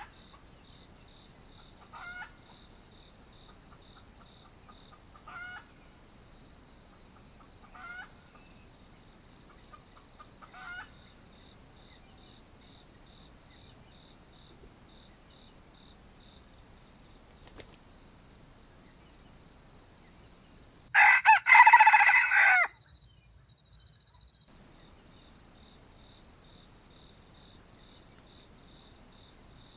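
Junglefowl rooster giving short clucking calls every few seconds, then one loud, broken crow about 21 seconds in. A steady high insect buzz continues underneath.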